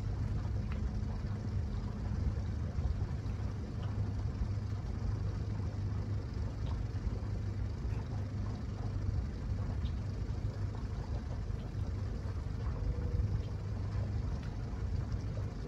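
Boat's outboard motor idling steadily, a low even hum, with a few faint light clicks over it.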